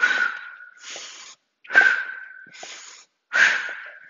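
A woman's heavy breathing in time with repeated jump squats: three sharp, forceful exhales about a second and a half apart, each followed by a softer intake of breath.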